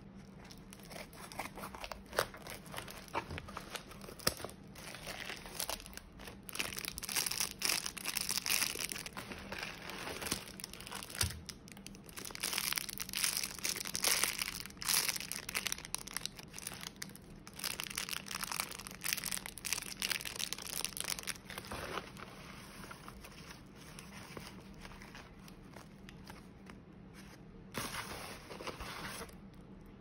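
Plastic packaging crinkling and tearing as a bubble mailer is opened and fidget toys in clear plastic bags are handled: a run of rustling bursts that eases off about two-thirds of the way through, with one more burst near the end.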